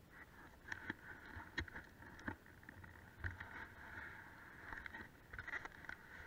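Faint irregular knocks and rustles over a low hiss: a handheld camera being moved around on a moving chairlift chair.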